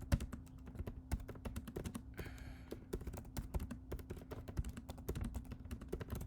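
Computer keyboard being typed on: a fast, irregular run of key clicks with a brief pause about two seconds in, over a faint steady hum.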